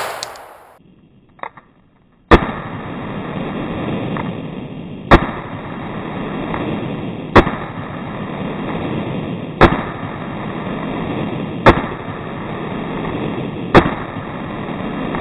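Revolver shots, six in all, spaced roughly two seconds apart: a double-action revolver fired one shot at a time, because it cannot be fanned. A faint click comes before the first shot, and a steady rushing noise runs underneath from the first shot on.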